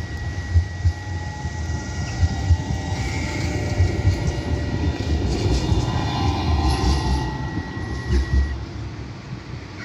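Tram running along its rails with a heavy low rumble and knocks from the wheels, a steady high whine over it that stops near the end. The sound fades as the tram moves off.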